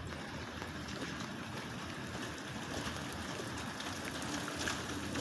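Steady rain falling, with scattered raindrops ticking that come more often in the second half.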